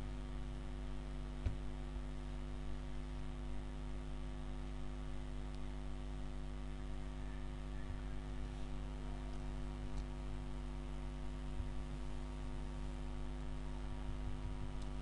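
Steady electrical mains hum with a stack of overtones, and a couple of faint clicks, about a second and a half in and again about ten seconds in.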